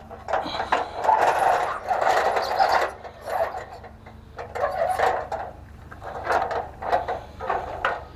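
Scraping and knocking of a truck trailer's side boards being handled and slid about, in a run of short irregular bursts of a second or less.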